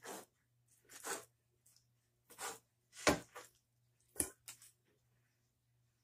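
Chef's knife chopping cooked chicken on a cutting board: about six separate cuts, roughly one a second, the loudest about three seconds in.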